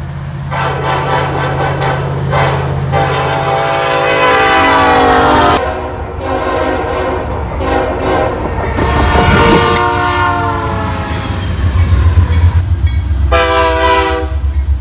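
Diesel freight locomotive air horns sounding a series of blasts: several horn chords, short and long, cut one after another, over the low rumble of locomotive engines and rolling train.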